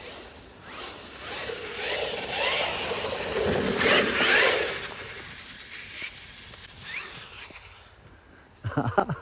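Traxxas X-Maxx 8S RC truck's brushless motor whining up and down in pitch, with the tyres scraping over frozen ground as it accelerates and slides past, loudest about four seconds in, then fading away. A short loud burst of knocks near the end.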